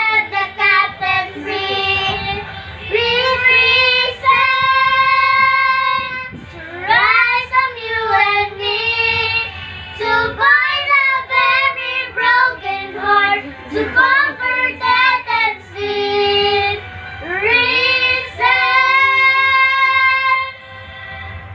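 Two children, a girl and a boy, singing a song together in long held phrases with gliding pitch.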